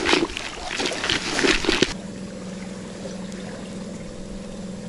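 Hands stirring damp feeder groundbait: rustling and squishing with small clicks for about two seconds. Then it cuts off abruptly, leaving a steady low hum.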